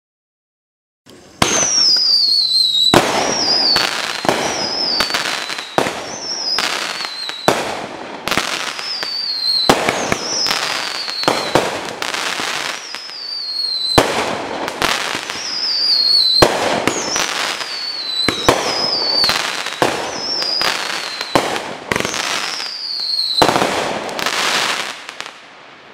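Dominator Loud Cloud 200-gram fireworks cake firing its shots one after another, starting about a second in and coming roughly every second and a half. Each shot is a whistle that drops in pitch, followed by crackling flower breaks.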